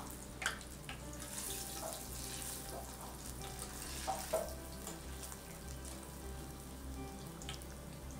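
Bondas deep-frying in hot oil, a steady sizzle, with a few light clicks of a wire-mesh skimmer against the steel pot as they are turned over.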